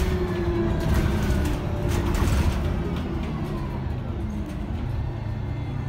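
Iveco Urbanway 12 natural-gas city bus heard from inside the passenger cabin on the move: a low engine and road rumble with a driveline whine that falls in pitch as the bus slows.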